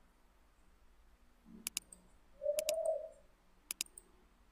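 Computer mouse clicking, in quick press-and-release pairs about a second apart, as checkboxes are ticked. Near the middle, a short low coo of under a second is the loudest sound.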